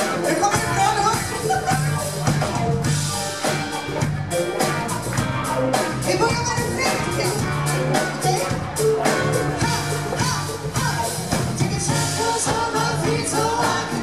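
Live band playing an upbeat rock-pop song with drum kit and electric bass, with singers singing into microphones over it.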